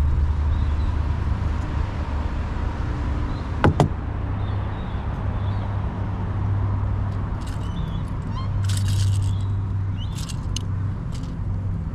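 Steady low rumble with handling noise from unhooking a bass: two sharp clicks about four seconds in, then a few short, high metallic rattles of pliers and lure hooks near the end.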